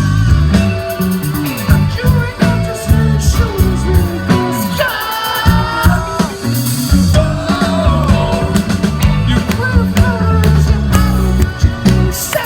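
Rock band playing live and loud, with drums, heavy bass and guitars.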